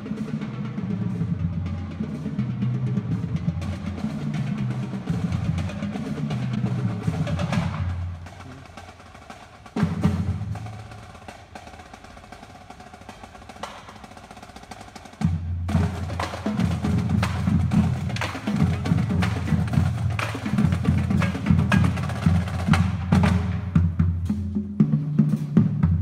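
Marching band playing while on the march, brass with a low bass line over snare and bass drums. The music drops away about a third of the way in, leaving a single loud drum hit and quieter drumming, then the full band comes back in just past halfway.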